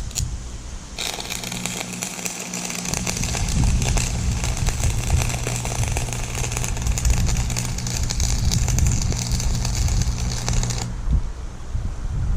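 Stick welding arc crackling steadily for about ten seconds, struck about a second in and broken off abruptly near the end, over a steady low hum.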